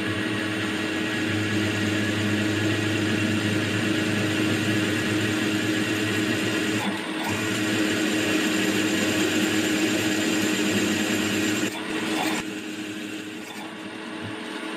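Milling machine's spindle running while a freshly reground 8 mm drill with a four-facet grind cuts into free-cutting mild steel, a steady machine hum under a rough cutting noise; the drill cuts well. About twelve seconds in the cutting stops and the quieter running of the machine is left as the drill comes out of the hole.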